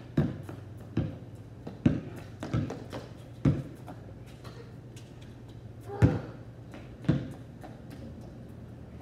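A basketball bouncing on a concrete driveway: dribbled about once a second for the first few seconds, then two more bounces later on. A steady low hum runs underneath.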